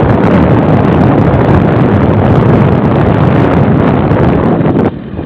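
Wind buffeting the microphone on a moving motorcycle, a loud, rough, steady rumble with the ride noise underneath; it drops away sharply for a moment near the end.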